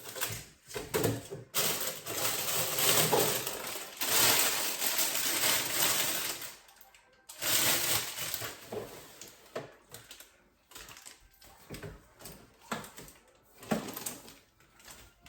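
Plastic food packaging rustling and crinkling as it is handled, with light knocks and clicks of items set down. Busiest in the first seven seconds, then sparser clicks and rustles.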